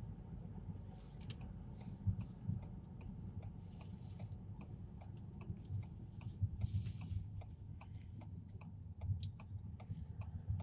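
Low, steady rumble of a car driving, heard from inside the cabin, with many small irregular clicks and ticks scattered over it.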